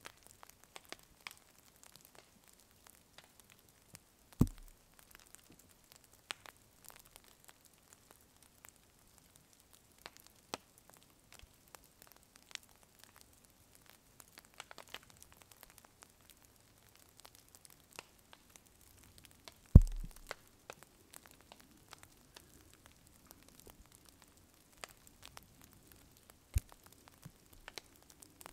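Small smoking campfire faintly crackling, with scattered light ticks and pops. Two heavy dull thumps, about four seconds in and again about twenty seconds in, and a lighter one near the end.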